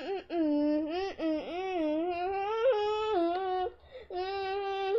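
A girl singing a tune in a high voice, holding long notes and stepping between pitches, with a short breath pause a little before the end.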